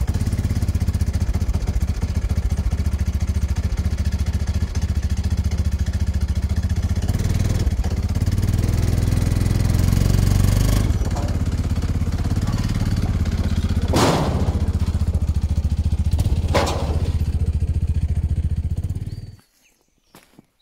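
Side-by-side utility vehicle's engine running steadily with a low, rapid pulsing, marked by two brief louder noises near the end. It stops abruptly shortly before the end.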